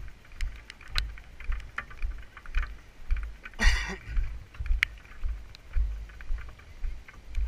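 Footsteps of someone walking with the camera, heard as low thuds about two a second, with light clicks and one brief rustling swish about halfway through.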